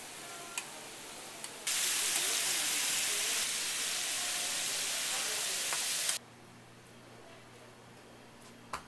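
Tteokgalbi (minced-meat patties) sizzling as they fry in oil on a flat-top griddle. The sizzle turns loud about two seconds in and cuts off suddenly about six seconds in, leaving a quiet low hum; a couple of sharp clicks come before it.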